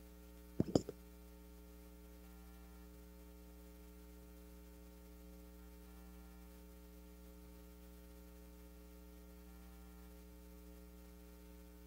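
Steady electrical mains hum, with a quick cluster of two or three sharp knocks a little over half a second in.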